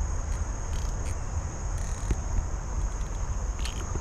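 Insects, crickets by their sound, trilling as one steady high-pitched band, over a steady low rumble, with a few faint clicks.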